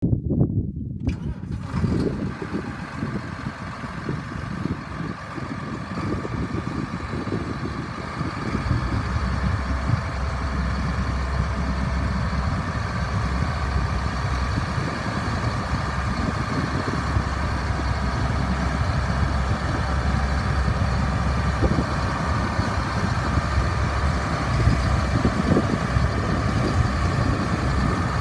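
Case IH 7110 tractor's six-cylinder diesel engine running as the tractor drives slowly forward. About eight seconds in, its low note grows heavier and a little louder.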